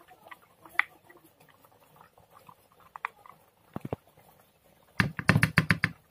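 Metal spoon scraping ground soybean paste out of a steel grinder jar into an enamel bowl, with scattered light clicks of spoon on metal. Near the end comes a quick, loud run of clinks and knocks as the spoon strikes the bowl.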